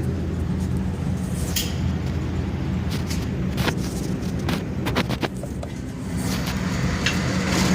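A vehicle engine idling with a steady low hum, with several faint sharp cracks scattered through it.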